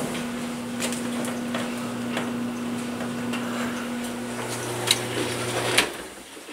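Steady electrical hum with scattered clicks and knocks of something being handled; the hum cuts off with a sharp click about six seconds in.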